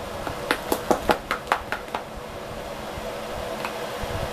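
A utensil clicks against a plastic mixing bowl while stirring thick hush puppy batter: a quick run of taps that stops about two seconds in. A steady whirring hum runs underneath.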